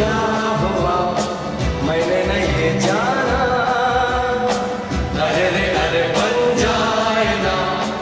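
A Bollywood film song played by a band, with a steady drum beat under the melody and a rising melodic glide about three seconds in.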